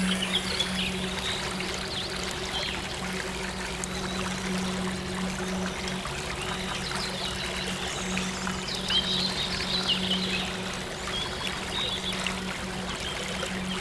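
Water flowing steadily, like a stream, over a soft sustained synth drone, with short high chirps from small birds, thickest about two-thirds of the way in.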